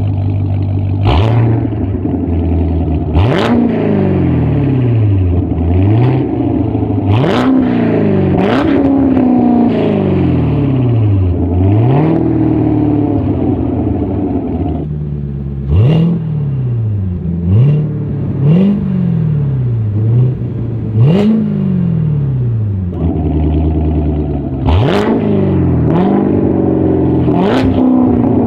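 Corvette C7 Z06's supercharged 6.2-litre V8 through a 3.5-inch valved straight-pipe exhaust, idling and being blipped about a dozen times. Each blip rises sharply and falls back slowly to idle, and several come with a sharp crack.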